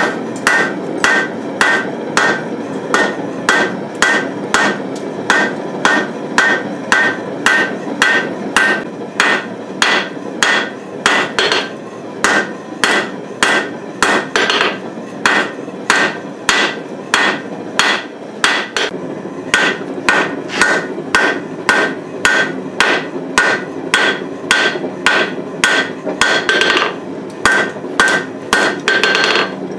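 Hand hammer forging red-hot steel on an anvil: steady blows about two a second, many of them with a bright anvil ring, over a steady rushing noise.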